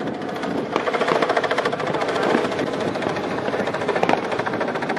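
Aerial fireworks with a dense, rapid crackling, broken by a few sharper bangs, one about a second in and one near the end.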